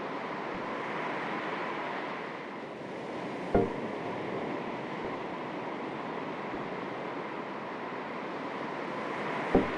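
Calm sea with small waves lapping in a steady wash. Two short low thumps stand out, one about three and a half seconds in and one near the end.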